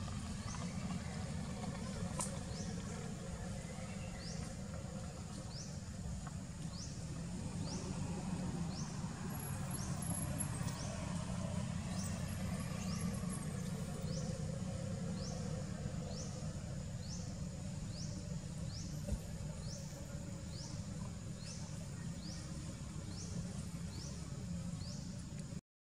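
Outdoor ambience: a steady low rumble under a short, high rising chirp that repeats evenly about once a second throughout.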